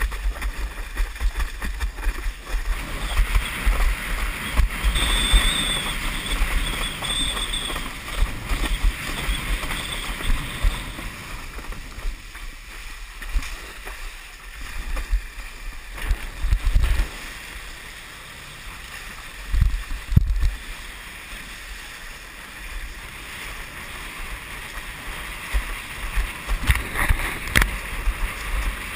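Windsurf board planing over choppy water: wind buffeting the rig-mounted camera's microphone, with water rushing and hissing past the board and low thumps from the chop. A brief high whistle sounds about five seconds in, and the rush eases off through the middle.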